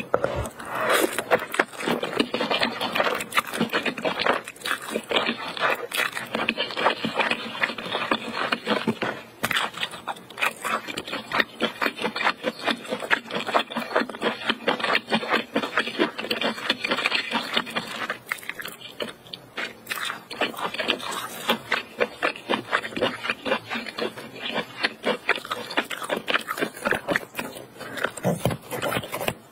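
Close-up wet eating sounds of spicy ramen noodles and octopus: slurping and chewing with a dense, continuous run of smacks and clicks.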